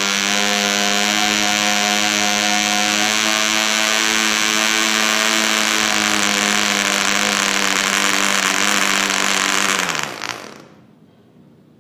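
PAW 55 model diesel engine, a small two-stroke compression-ignition engine, running in with a propeller at a steady, high-pitched buzz. About ten seconds in its pitch sags briefly and it stops.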